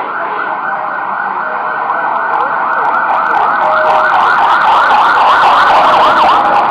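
Emergency vehicle siren on a fast yelp, its pitch sweeping up and down about four times a second and growing louder, over steady street noise.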